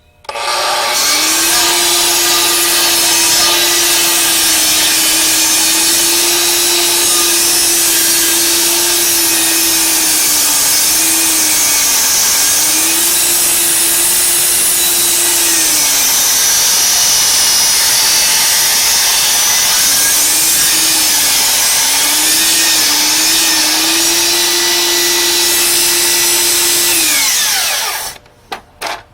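An electric power tool running continuously for about 27 seconds, starting just after the beginning and cutting off near the end. Its motor pitch sags several times as it bogs under load in the middle stretch, as when cutting or boring into wood.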